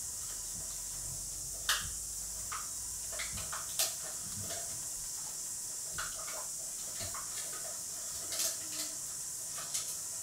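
Steady high hiss of the recording, with a few faint short brushing sounds as a dense makeup brush is swept over the face.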